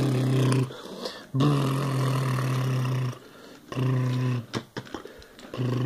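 A man's low voice humming in long, steady drones, imitating a train engine: three stretches of a second or two each with short pauses between, the third starting near the end. A few sharp clicks fall in the pauses.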